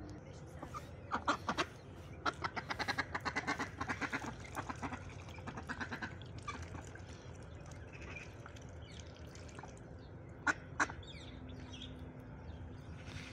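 White domestic ducks quacking: bouts of rapid quacks through the first five seconds or so, then two sharp single quacks about ten and a half seconds in.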